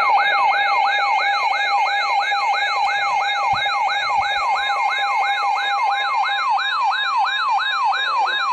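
Electronic siren-style alert tone announcing a broadcast severe thunderstorm warning. It sweeps up and down quickly, about three times a second, over a steady underlying tone.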